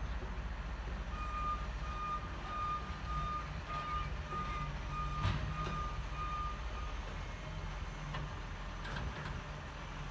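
Side-loader garbage truck's engine running steadily while its warning beeper sounds about twice a second for some six seconds, then stops. A sharp knock comes midway, and a few more knocks near the end as the lifting arm handles a wheelie bin.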